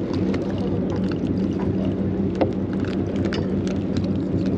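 Steady low hum of the charter boat's engine running, with a few light clicks and taps, one sharper about two and a half seconds in.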